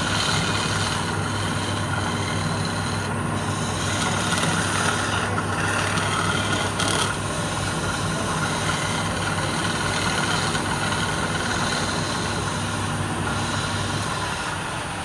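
Wood lathe spinning a palm-wood workpiece while a hand-held chisel cuts into it: a steady scraping over the motor's hum. The cutting stops near the end and the sound drops.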